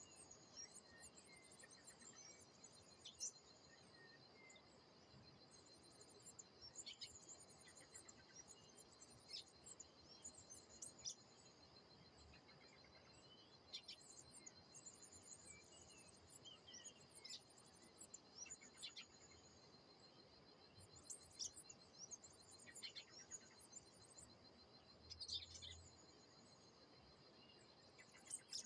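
Faint birdsong: many short high chirps and calls from several birds, scattered irregularly over a steady, high-pitched insect trill that runs unbroken underneath.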